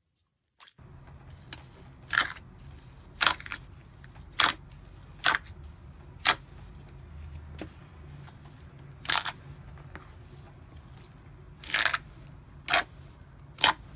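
White fluffy slime being pressed and stretched by hand, giving sharp crackling pops about once a second over a low steady hum.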